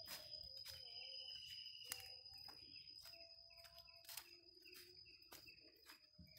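Faint outdoor animal sounds: a steady high-pitched insect trill with other overlapping calls that start and stop, and scattered sharp clicks.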